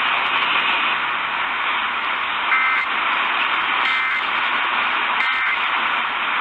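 Steady radio static hiss, broken by three short warbling digital data bursts about 1.3 seconds apart, typical of the Emergency Alert System end-of-message code sent after a warning.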